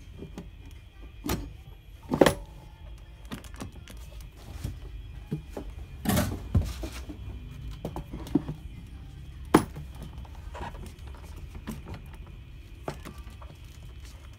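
Scattered plastic knocks and clunks as a hollow plastic wheel is handled and pushed onto a kids' ride-on car's rear axle next to its gear motor, the loudest about two, six and nine and a half seconds in, over background music.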